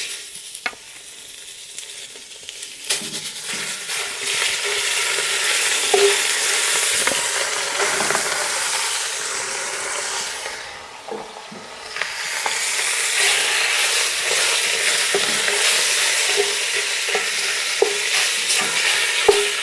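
Mixed minced meat sizzling as it fries in hot oil in a cast-iron Dutch oven, with a wooden spatula scraping and tapping against the pot. The sizzle swells about three seconds in, drops off briefly around the tenth second, then picks up again.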